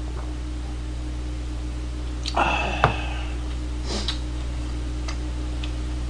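A drinking glass set down on a table: a short clatter about two and a half seconds in, ending in a sharp clink, the loudest sound. Just after four seconds a metal spoon briefly scrapes in a bowl, all over a steady low hum.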